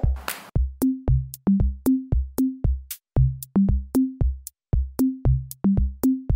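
Background music with an electronic beat of short bass notes and sharp percussion hits, dropping out briefly twice.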